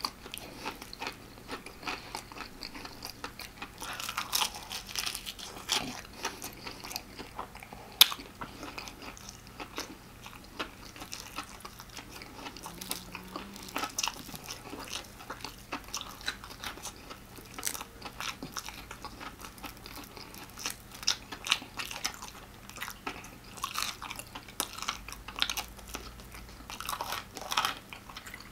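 Close-miked crunching and chewing of extra-crispy fried chicken: many sharp crackles as the breading is bitten and chewed, with one sharp, loud crack about eight seconds in.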